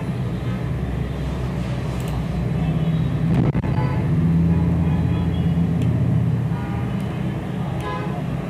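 Steady low background rumble that grows louder for a few seconds in the middle and then eases off, with a few faint clicks.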